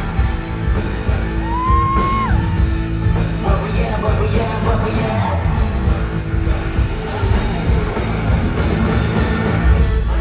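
Live concert music played loud through a hall's sound system, with heavy bass and singing. About a second and a half in, one high yell from the audience rises and then drops off.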